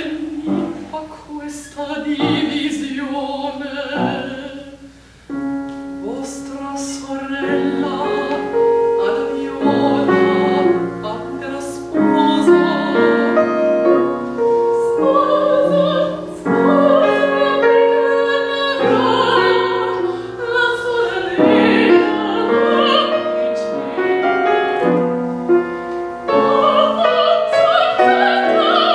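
Operatic female singing in Italian with vibrato, accompanied by piano. There is a brief lull about five seconds in, after which the piano chords and voice grow fuller and louder.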